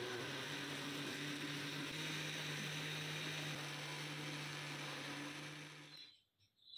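Electric blender running, its motor blending a cream and powdered-sugar mixture in a lidded glass jar: a steady hum with a whirring rush that picks up slightly about two seconds in, then winds down and stops about six seconds in.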